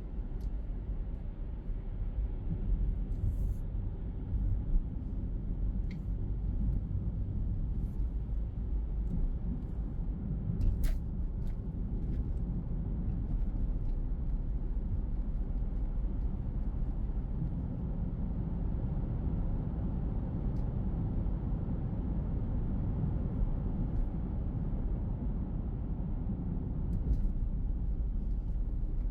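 Car driving on city streets, heard from inside the cabin: a steady low rumble of road and engine noise, with a few short sharp clicks and ticks.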